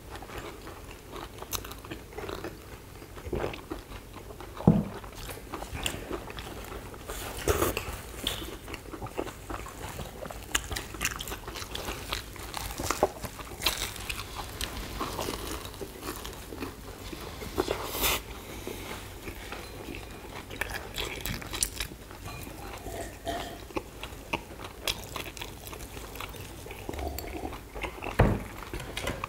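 Several people biting into and chewing sugar-coated fried twisted doughnuts (kkwabaegi), close to the microphone: irregular crunchy bites and chewing, with a sharper bite about five seconds in and another near the end.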